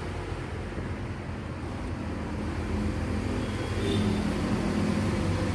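Steady low mechanical hum from the Skoda Fabia, getting a little louder about halfway through.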